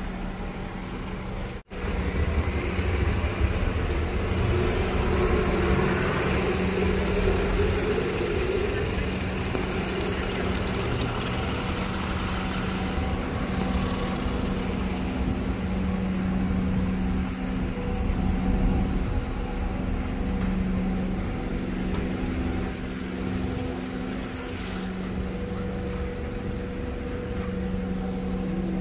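City street traffic dominated by buses, with bus engines running close by in a steady low hum and other vehicles passing. The sound drops out for a moment near the start.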